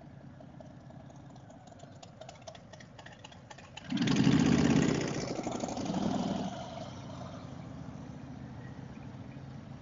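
Harley-Davidson V-twin motorcycle engine idling, then opened up about four seconds in to pull away, rising loudly, easing, and rising again for the next gear before settling into a steady run.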